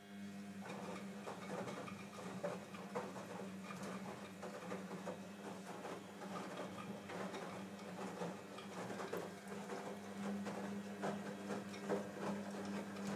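Small electric motor of a battery-powered toy car running with a steady hum, with rapid irregular clicking and rattling of the toy's wheels and body over it. The hum switches on at the very start.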